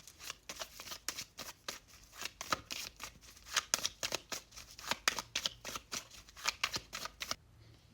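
A deck of tarot cards being shuffled by hand: a quick, uneven run of crisp card slaps and rustles that stops near the end.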